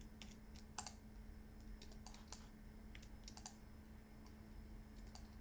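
Faint computer keyboard keys being pressed in irregular, scattered clicks over a steady low hum.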